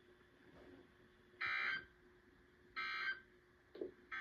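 Weather radio broadcast of the digital SAME end-of-message data bursts that close the required weekly test: short buzzy squawks, each under half a second, two of them about a second and a half apart and a third starting at the very end, over a faint steady hum.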